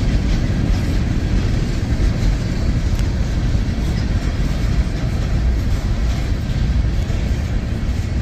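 CSX open hopper freight cars rolling past, a steady rumble of steel wheels on the rails.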